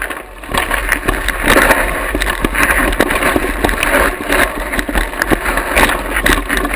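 Wind rumbling on the microphone, with crunching steps and frequent small knocks and clatter from moving over a rocky dirt trail.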